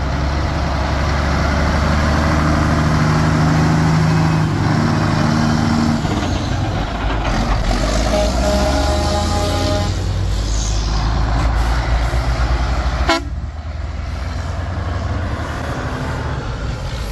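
Heavy diesel truck engines pulling away and passing, with a Mack cabover tractor hauling a loaded lowboy trailer. A horn gives several short toots about eight seconds in. A sudden click comes about thirteen seconds in, and the sound is quieter after it.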